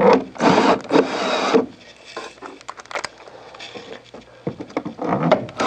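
Cordless drill driver running briefly about half a second in, spinning a bolt into the dehumidifier's plastic upper housing, followed by clicks and rubbing of the plastic housing and tool.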